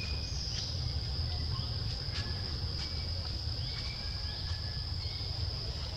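Tropical forest insects droning on one steady high note, with brief faint chirps and clicks over a low rumble.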